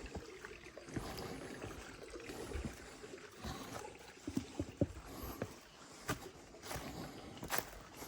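Footsteps through dense undergrowth, with leaves and twigs rustling and crackling in irregular snaps.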